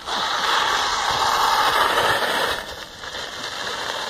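Small BMX bike's rear tyre skidding on a dirt path: a loud hiss that starts suddenly, eases after about two and a half seconds and trails on more quietly.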